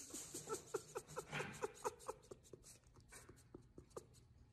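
Faint, breathy laughter trailing off: short quick pulses, a few a second, growing steadily fainter.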